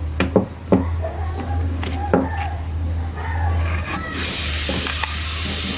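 Clicks and knocks of handling, then about four seconds in a steady hiss starts, consistent with a Stanley STSS025 orbital sander's pad sanding a surface.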